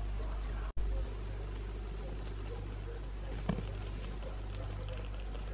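Steady low hum with a faint hiss, cut off for an instant under a second in, and a single light click around the middle.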